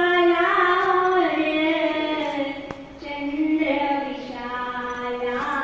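Women's voices singing a devotional chant through a microphone and PA, holding long notes that step slowly up and down in pitch; a single sharp click about halfway through.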